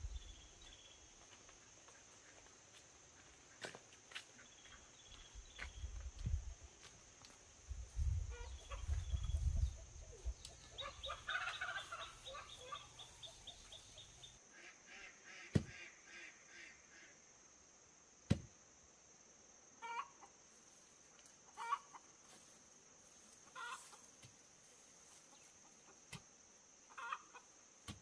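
Chickens clucking, with short calls every couple of seconds in the second half, over a steady high drone of crickets. A low rumble runs through the first half, and there are two sharp knocks near the middle.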